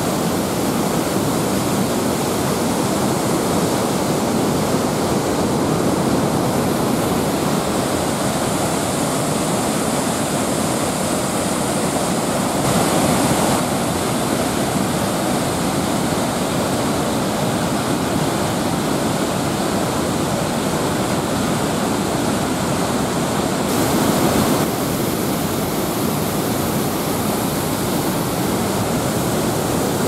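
Steady rush of white water from a mountain river tumbling over a stepped concrete dam, swelling briefly twice.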